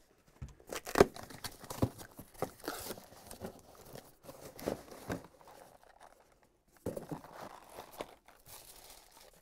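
Cardboard shipping case being opened by hand: packing tape and cardboard tearing, tissue paper crinkling and carded toy cars rustling as they are pulled out. Irregular rustles and knocks, loudest about a second in.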